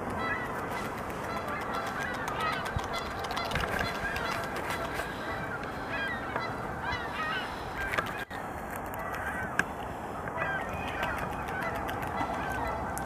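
Geese honking over and over, many calls overlapping, with scattered sharp clicks over a steady background hiss.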